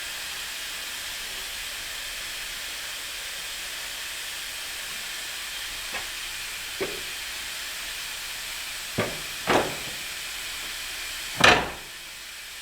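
Steady hiss of compressed air escaping from a leak in a pneumatic nail gun's air line. A few sharp knocks come from about six seconds in, the loudest near the end.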